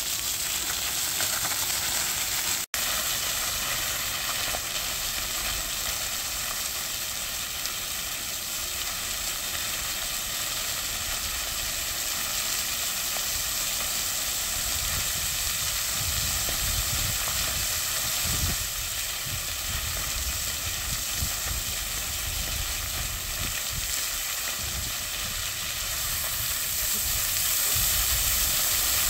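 Floor fountain: water jets spraying up and splashing down onto stone paving in a steady hiss. The sound cuts out for an instant about three seconds in, and a low rumble joins in the second half.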